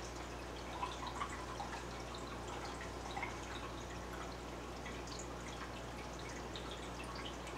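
Aquarium water trickling, with small irregular drips and plops, a few slightly louder about a second in and around three seconds, over a steady low hum.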